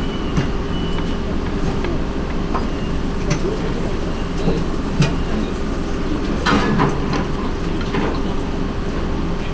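Wooden chopsticks clicking and scraping against a metal plate as the last noodles are picked up, with a louder clatter about two thirds of the way through, over a steady low rumbling hum.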